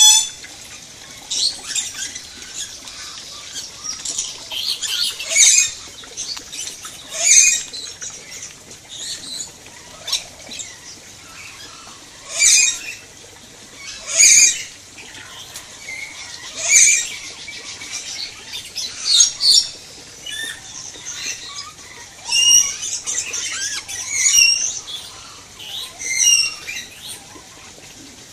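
Birds giving short, shrill squawks again and again, about one every one to two seconds, with softer chirping in between.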